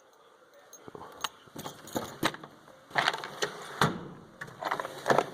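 Irregular clicks and clatter of hand tools being handled and shifted in a toolbox drawer, starting about a second in.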